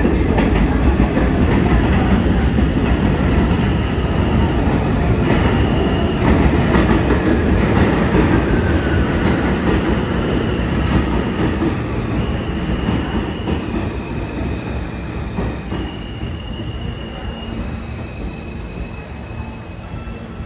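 New York City Subway train running past with a heavy steel-wheel rumble and rail clatter, joined from about five seconds in by high wheel squeal that comes and goes at a few steady pitches. The rumble fades gradually through the second half as the train moves away.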